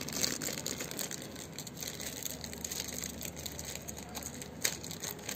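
Plastic toy packaging crinkling and crackling as it is handled, with a sharper click near the end, as a Plarail Thomas engine is worked free of its plastic.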